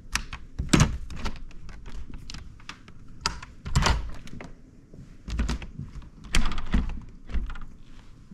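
A string of irregular knocks and thuds, as of objects being handled and set down in a small room, with heavier thumps about a second in, near four seconds and around six and a half seconds.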